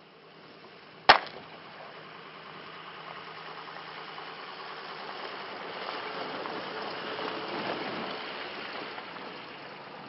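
A single sharp gunshot crack about a second in, followed by a steady rushing noise that slowly swells and then fades.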